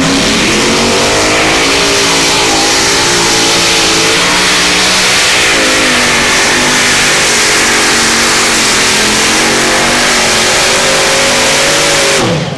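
Supercharged engine of a modified pulling tractor running at full throttle under load while pulling the sled. Its pitch wavers up and down through the pull. Just before the end the pitch falls sharply and the sound drops away as the throttle comes off at the end of the run.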